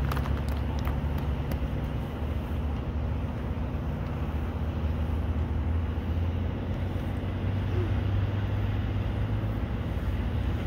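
Steady low engine rumble, its pitch drifting slowly.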